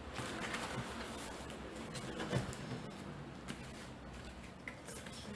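Quiet rustling and scratching of plastic-wrapped books being handled, with a few faint clicks.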